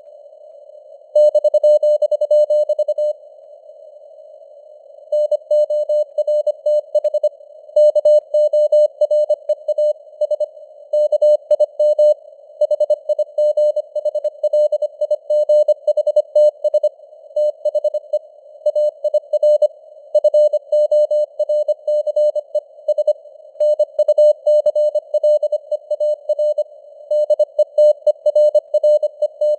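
Morse code (CW) sent at 25 words per minute: a single steady tone keyed on and off in quick dots and dashes over a narrow band of simulated radio hiss. About three seconds in, the keying pauses for roughly two seconds, leaving only the hiss.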